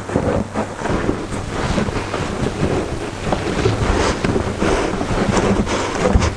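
Hands mixing simit dough in a plastic tub and then kneading it on a wooden tabletop: a dense, uneven rustling and pressing noise.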